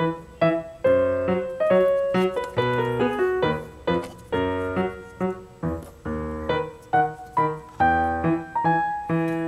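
Piano music: a melody of separate struck notes, each fading away, over lower bass notes.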